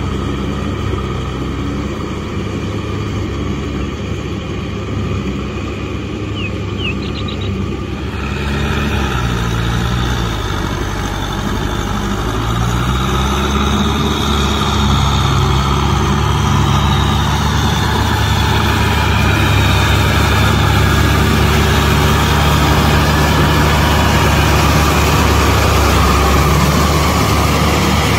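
Kubota M6040SU tractor's four-cylinder diesel engine running under load while it drives a rotary tiller through wet mud. The engine note dips and recovers about ten seconds in, and the sound grows louder and brighter through the second half.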